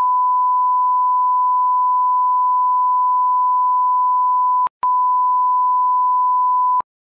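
Censor bleep: a steady, loud, single-pitch beep tone edited over speech that has been muted. It runs for nearly five seconds, breaks off for an instant, then sounds again for about two seconds before cutting off suddenly.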